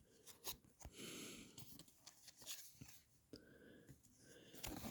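Near silence with a few faint taps and clicks of trading cards being handled and laid down, and a soft breath about a second in.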